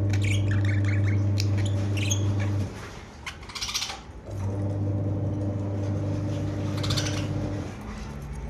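Budgies giving short scattered chirps over a steady low electrical-sounding hum. The hum is the loudest thing heard: it stops about two and a half seconds in and starts again about four seconds later.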